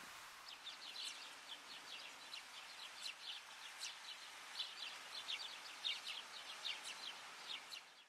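Fuerteventura stonechat singing: a rapid, scratchy run of short high notes that starts about half a second in and goes on almost without a break.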